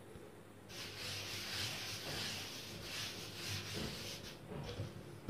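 A hand rubbing dusted flour across a thin rolled sheet of pasta dough on a wooden board: a dry swishing in strokes lasting about three and a half seconds, then one shorter stroke and a single knock at the end.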